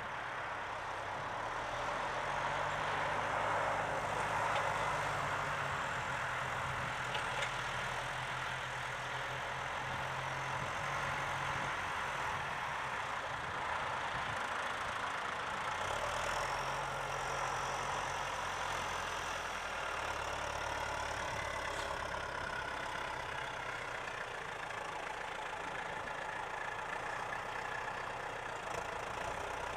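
John Deere 6310 tractor's diesel engine running steadily, its engine note stepping up and down in pitch a few times, over a steady background hiss.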